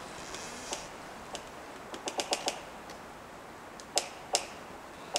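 Wind in the pine tops, a steady hiss of the forest, broken by a scattering of sharp clicks and ticks, with a quick run of them about two seconds in.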